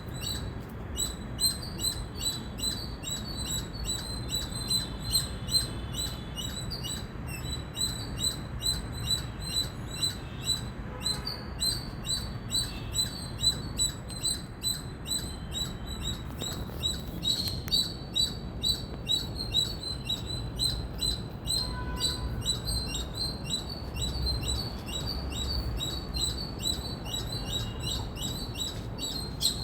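Indian palm squirrel chirping: a long, unbroken run of sharp, high-pitched chips, about three or four a second.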